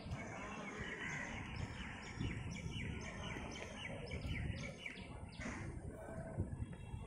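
Bird chirping: a run of short, high chirps repeated about three times a second, over a steady low rumble of outdoor noise.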